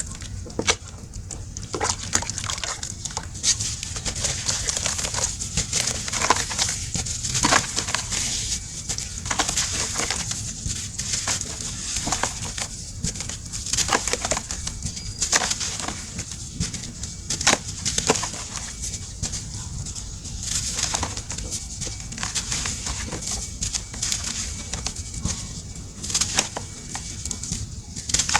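Close-miked crumbling and crushing of a dry, brittle material, a continuous run of irregular crisp crunches and crackles.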